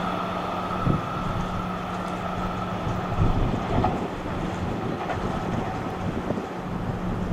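Electric commuter train at a station platform: a steady low hum and a high whine that fades away after the first couple of seconds. There is wind noise on the microphone and a couple of soft thumps.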